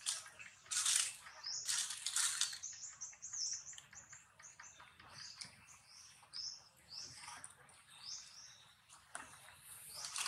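Small birds chirping in many short, high, swooping notes, with two brief bursts of rustling noise near the start.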